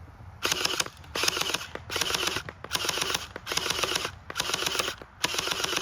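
Toy M4 gun firing in seven short bursts of rapid rattling clicks, each about half a second long with brief pauses between them.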